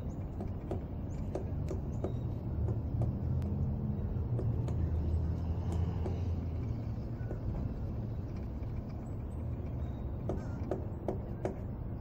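Pileated woodpecker knocking on a tree: single hard knocks at irregular intervals, bunching into a quicker cluster near the end. Under them runs a steady low rumble that swells in the middle and is the loudest sound.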